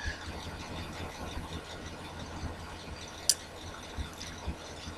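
Faint steady low hum with soft irregular ticks of a computer mouse scroll wheel, and one sharp mouse click about three seconds in.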